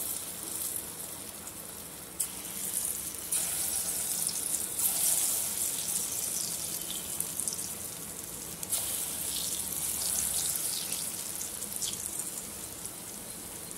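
Hot oil in a kadai sizzling as small balls of jackfruit and rava batter deep-fry, a steady high hiss that swells in steps several times as more balls go in.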